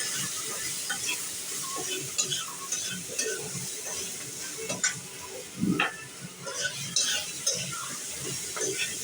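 Potatoes frying in oil in a pan, stirred with a cooking utensil: a steady sizzle under irregular scrapes and clinks of the utensil against the pan.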